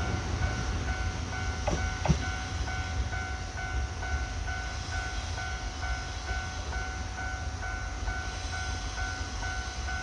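Japanese level-crossing warning bell ringing with a quick, evenly repeating electronic ding, over the low rumble of the Saphir Odoriko train moving slowly past. Two sharp knocks come about two seconds in.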